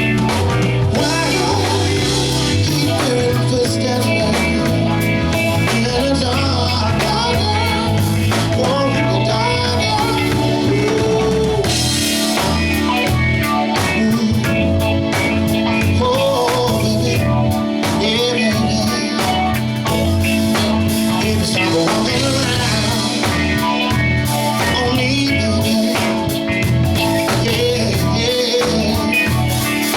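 Live soul band playing a slow, steady groove, with bass and drum kit under guitar.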